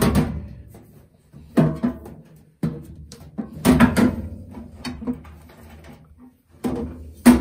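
Metal fluid tank of a parts washer being worked by hand into its cabinet: a series of about five knocks and bumps of metal on metal, some ringing briefly.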